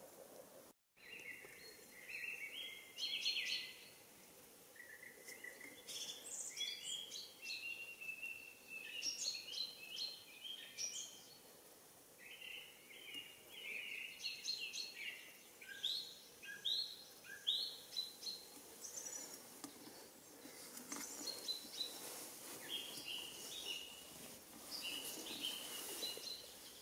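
Small songbirds calling and singing: runs of short, high chirps and quick notes, some of them falling sweeps, coming in bursts throughout, with a brief dropout just under a second in.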